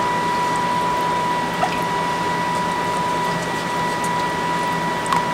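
Steady hiss and hum with a thin, constant high whine, like a running fan or motor; a faint tick or two, otherwise no distinct events.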